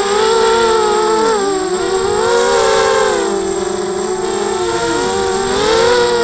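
ZMR 250 mini quadcopter's four brushless motors and propellers whining in flight, heard from its onboard camera. Their pitch rises and falls with the throttle and dips sharply twice.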